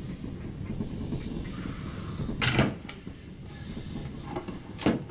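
Two loud knocks about two and a half seconds apart over a low steady rumble; the second comes as the chainsaw lying on the table is gripped and moved, its engine not running.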